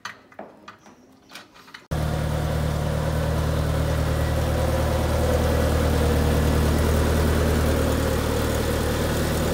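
A single-seater race car's engine idling steadily on a stand with its wheels off, starting abruptly about two seconds in, after a few faint clicks and rustles of handling.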